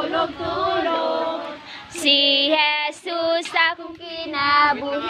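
A group of children singing together, unaccompanied, with a louder and clearer high voice standing out from about two seconds in.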